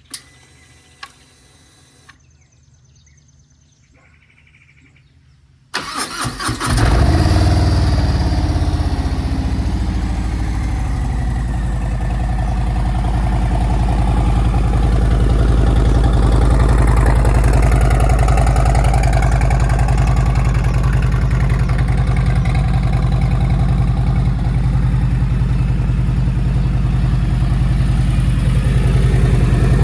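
Harley-Davidson Milwaukee-Eight V-twin engine cranked by its starter about six seconds in. It catches within a second and then idles steadily, run after an oil change. A few faint clicks come before the start.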